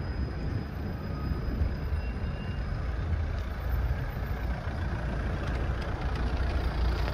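Steady city street traffic noise: cars idling and moving at an intersection, with a constant low rumble.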